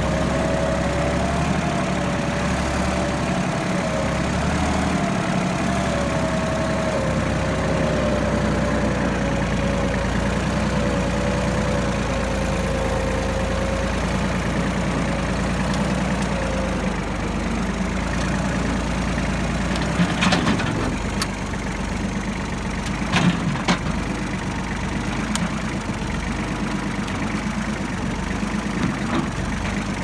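Compact tractor engine running steadily, with a wavering whine over it that fades out a little over halfway through. A few sharp knocks follow about two-thirds of the way in.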